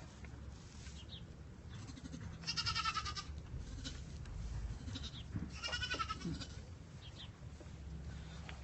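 Goats bleating faintly twice, each a short, high, wavering call, the first about two and a half seconds in and the second about halfway through.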